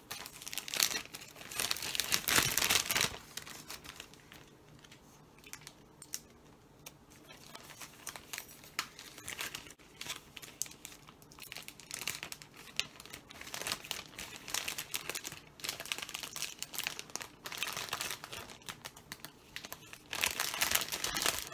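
Clear plastic treat bag crinkling as it is handled and a bottle is slid inside it, loudest in the first few seconds and again near the end, with lighter crackles in between.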